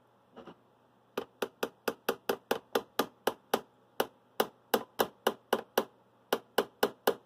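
Ball peen hammer tapping on a milling-vise setup, a steady run of light, sharp taps at about four a second, beginning about a second in.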